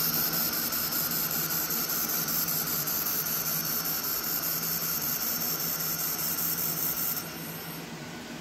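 Air-cooled 2000 W handheld fiber laser welder running a wire-fed bead on stainless steel: a steady, loud high hiss with spatter, stopping about seven seconds in. A low steady machine hum continues underneath.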